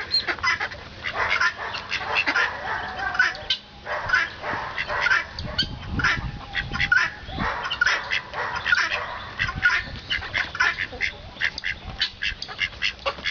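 Mallard ducks and ducklings calling: a dense, continuous run of short, high peeps with quacks mixed in.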